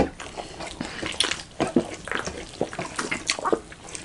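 Close-miked eating sounds: wet chewing, lip-smacking and mouth clicks of people eating rice and fried chicken by hand, in many short irregular smacks.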